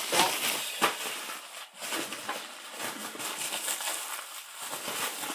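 Packaging being handled: paper and plastic rustling and crinkling, with a few sharp clicks, as items are pulled out of a shipping box.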